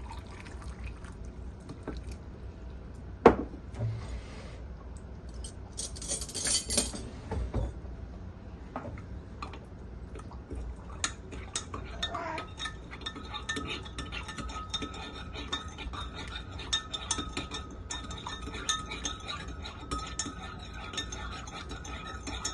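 A metal spoon clinking and scraping in a container while it stirs sugar into warm water to dissolve it. There is a short pour of water about six seconds in, and from about twelve seconds on a fast, continuous run of ringing clinks as the stirring gets going.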